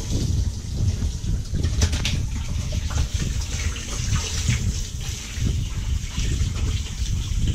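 Water gushing and splashing from the pump-fed spray outlet of a boat's livewell into the well, with a steady low rumble underneath.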